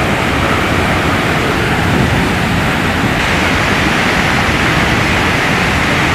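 Muddy flash-flood torrent rushing down a river channel: a loud, steady rush of churning water, its tone shifting slightly about three seconds in.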